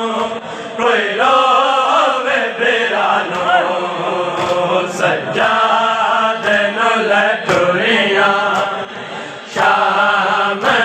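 Men chanting a noha, a Shia mourning lament, led by a reciter singing into a microphone. The rhythmic sung chant carries on with only short breaths between lines, and a few sharp knocks break through.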